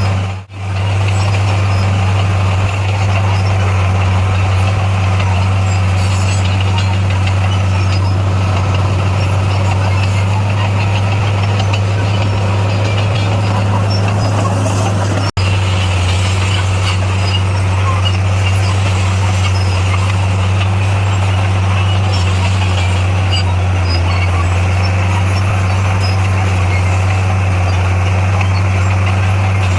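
D58A bulldozer's diesel engine running steadily with a deep, even hum, broken by two brief cuts, one just after the start and one about halfway through.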